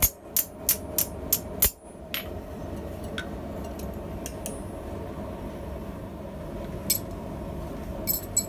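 Hand hammer striking a steel top tool held in tongs and set into the hot finger ring of a forged scissor half on the anvil: six quick ringing blows, about four a second. The blows are followed by a steady background rumble and a few light metal clinks near the end as the two steel scissor halves are handled.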